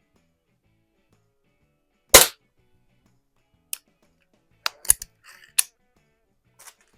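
A single shot from a Daisy Model 62 underlever spring-piston pellet pistol about two seconds in, a sharp crack with a brief ring. Several lighter clicks follow.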